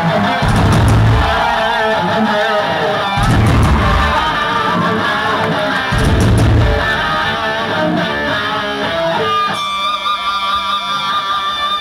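Live rock band playing loud, with electric guitar, bass and drums; heavy low accents land three times, about three seconds apart. Near the end the band settles into steadier held guitar notes.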